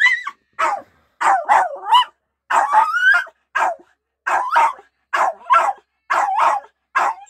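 A dog barking and whining in short, high-pitched yelps, about a dozen in a row, with the pitch sliding up and down within several of them.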